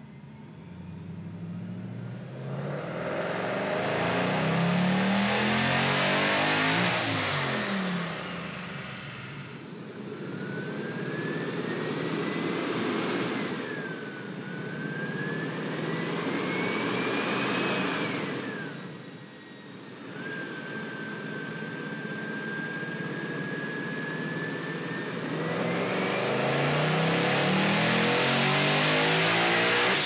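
Centrifugally supercharged V8 on a chassis dyno making loaded pulls, its engine revs climbing loudly near the start and again near the end. In between, a supercharger whine rises and falls twice and then holds steady. ProCharger blow-off and race valves vent boost with a rushing hiss as the revs drop.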